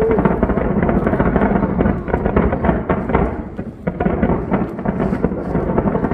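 Large aerial fireworks display going off in a dense barrage: rapid, overlapping booms and crackles with a heavy low rumble.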